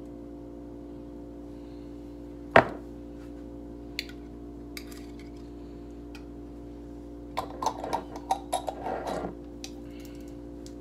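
Kitchen handling noises from a jar and utensils: one sharp knock about two and a half seconds in, a light tap a little later, then a run of clinks and clatters from about seven to nine seconds in. Faint steady background music plays underneath.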